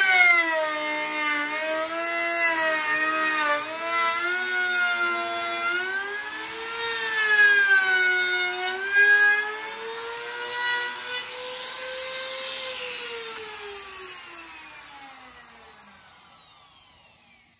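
Handheld trim router running while cutting along a wooden board, its whine wavering up and down in pitch as the bit bites into the wood. About twelve seconds in it is switched off and winds down, the whine falling steadily in pitch and fading away.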